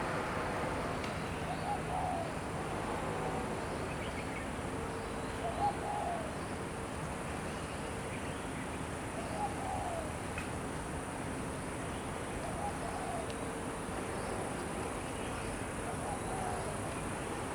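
A dove cooing: short calls repeated about every two to three seconds, over a steady low background hum.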